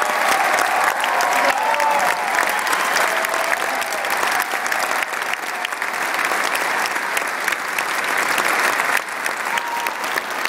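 Large audience applauding in a standing ovation, many hands clapping steadily.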